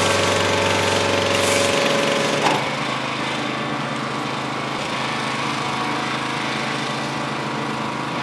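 A motorized tool or machine running steadily. A low hum drops out about two seconds in, and after a click the running sound goes on a little quieter.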